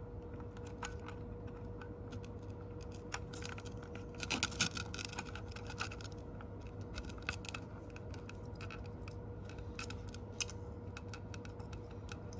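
Scattered small clicks and rattles of battery cable connectors and plastic parts being handled, with a brief flurry of louder clicks about four to five seconds in, over a faint steady hum.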